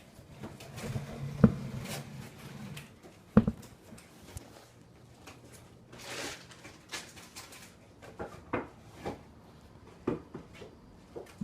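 Handling noise of a camera being moved and set in place: knocks, clicks and rubbing, with two sharp knocks in the first few seconds and lighter clicks after. A low hum sounds for about two seconds near the start.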